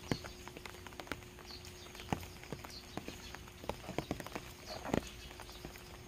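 Rain dripping from thatched eaves, irregular drops tapping on wet ground and stones, a little denser about five seconds in. A bird chirps briefly now and then in short high notes.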